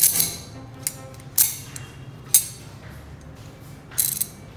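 Metal water pump pliers clicking as they are handled and their slip joint is worked, metal on metal. There are a few separate sharp clicks, then a quick rattle of several near the end.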